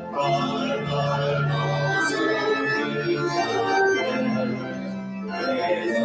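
Organ playing slow music in held chords, with notes changing every second or so.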